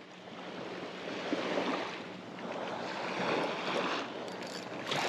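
Small bay waves washing against the shoreline, with wind blowing on the microphone; the rush swells and eases a couple of times.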